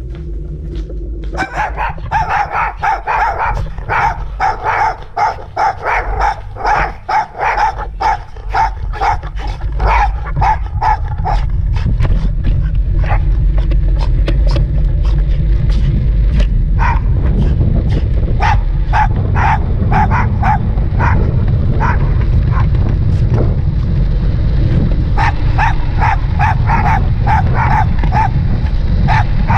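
Two small dogs yipping and barking excitedly in rapid, repeated bursts, their excitement at heading to the park. About twelve seconds in, a steady low rumble of wind and road noise on the microphone joins as the bike gets moving, with the yips carrying on in clusters over it.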